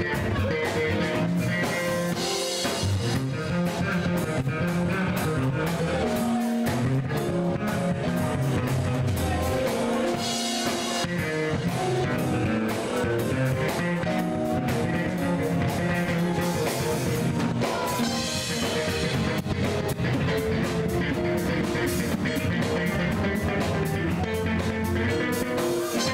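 Bass guitar soloing, a busy run of plucked notes over a live drum-kit groove. A cymbal crash washes over the top three times, about eight seconds apart.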